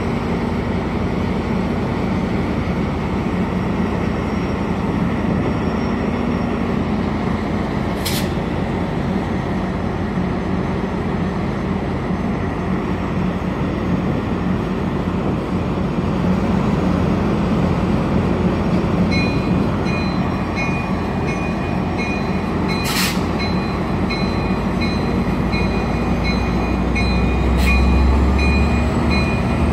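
Sounder commuter train's diesel locomotive running steadily beside the platform with a low, even hum. From about two-thirds in, a repeating high ringing joins it, and a few sharp knocks sound along the way.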